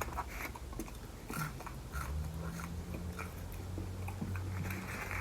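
Close-miked chewing of fast food, with small wet mouth clicks scattered throughout, over a steady low hum.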